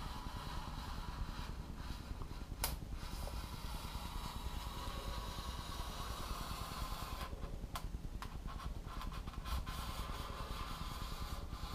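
Razor blade drawn slowly through the green foam core of a carbon-skinned wing, a faint scraping with a sharp click a few seconds in and a few lighter ticks later.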